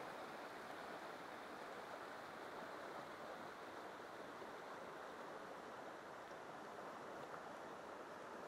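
Faint, steady rush of a fast-flowing river's current over a shallow rocky bed.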